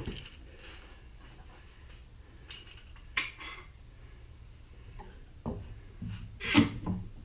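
Scattered knocks and metallic clinks as a red-jawed pipe clamp is handled and set across a wooden molding flask, with a pair of light clicks about three seconds in and the loudest clank a little before the end.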